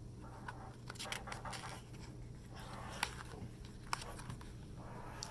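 Faint paper rustling and a few light clicks as a picture-book page is handled and turned, over a low steady hum.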